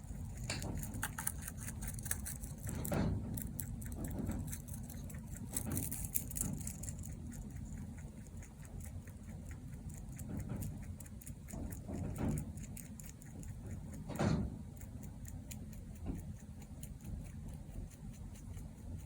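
Mini Rex rabbit snoring: a fast run of soft fine clicks with a steady low hum underneath, and a few louder clicky swells about 3, 6, 12 and 14 seconds in.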